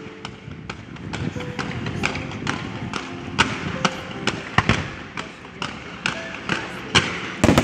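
Fireworks display: a rapid series of shots and bangs, about three a second, with a louder cluster near the end, while music plays.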